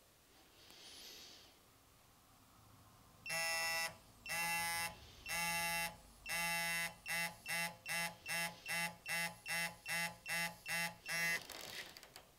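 Digital torque wrench beeping as it is turned toward its 90-degree angle target: four long beeps, then quicker short beeps at about three a second as the target nears.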